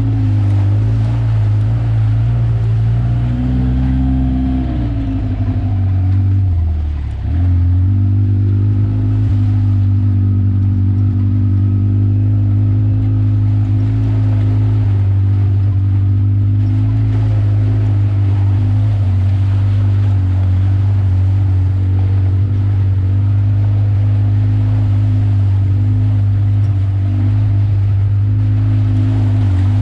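Off-road vehicle's engine running steadily while driving a muddy trail. About five seconds in it drops in pitch as the throttle eases off, then picks back up about two seconds later.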